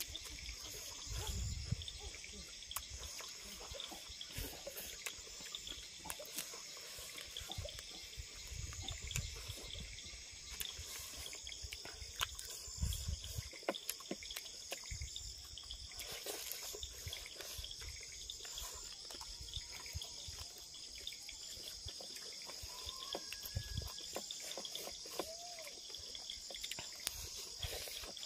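Insects chirring steadily in a high band, over faint eating sounds: chewing, smacking and the squelch of rice and fish being mixed by hand, with a few soft low thumps.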